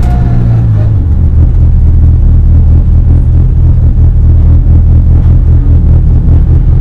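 Race car engine running hard at fairly steady revs, loud, with a deep low drone.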